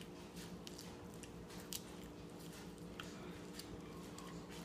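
A small child chewing and biting a mouthful of salad leaves: faint wet mouth clicks scattered through, the sharpest about two seconds in, over a steady low hum.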